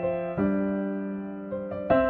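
Slow keyboard music: sustained piano-like chords, a new chord struck about half a second in and a few single notes near the end.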